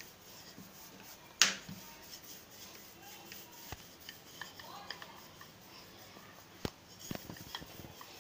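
Wooden rolling pin rolling out a disc of stiff maida dough on a stone countertop: faint rubbing, with a few sharp clicks, the loudest about a second and a half in.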